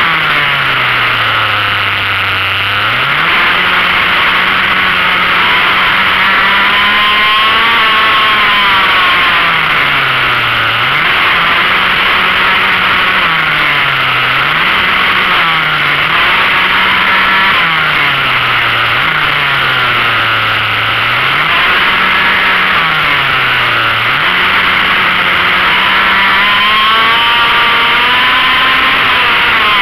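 Small racing engine heard onboard as it laps a circuit: the revs are held high along the straights and drop sharply several times for the corners, climbing back each time.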